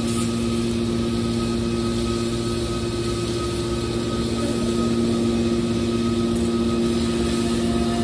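Steady hum of a scrap metal baler's hydraulic power unit running, its electric motor and pump giving a few constant tones, with no pressing stroke or impacts.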